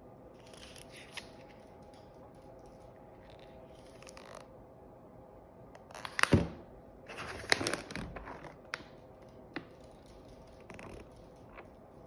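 Rustling and handling of what sounds like packaging, with a few sharp knocks and clatters about six and seven and a half seconds in, over a faint steady hum.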